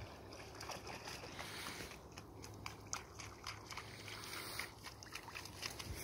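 Water sloshing and trickling, with scattered light clicks.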